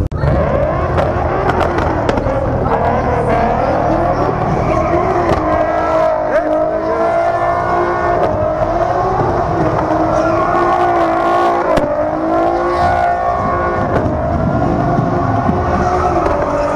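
A car drifting: its engine held at high revs, the pitch wavering up and down as the throttle is worked, with tyres squealing on the asphalt.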